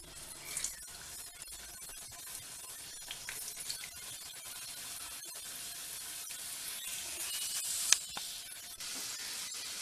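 Stuffed modak dumplings deep-frying in hot oil in a steel kadai: a steady sizzle with fine crackling that grows slowly louder, and one sharp click near the end.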